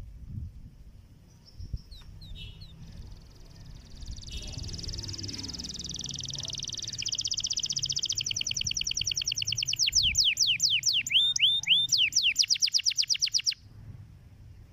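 Domestic canary singing. A fast, even, high trill starts about four seconds in and is joined by a second trill. It then breaks into a loud run of quick downward-sweeping notes that stops abruptly about a second before the end.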